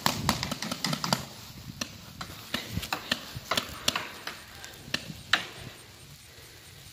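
Paintball markers firing in irregular sharp pops during a game: a quick flurry in the first second or so, then scattered single shots, the loudest about five seconds in.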